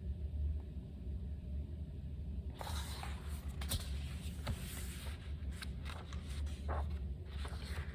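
Paper rustling and light clicks of a picture book's pages being handled and turned, starting about two and a half seconds in, over a steady low hum.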